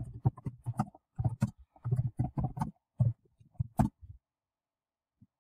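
Typing on a computer keyboard: a quick, irregular run of keystrokes that stops about four seconds in.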